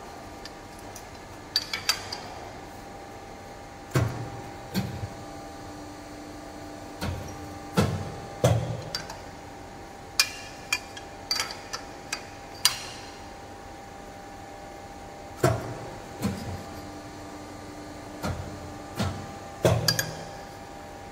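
Hydraulic pipe-end shrinking machine running with a steady hum, with sharp metal clanks and knocks as oval metal pipes are handled and pushed into its die. Twice a lower steady tone rises out of the hum for a couple of seconds.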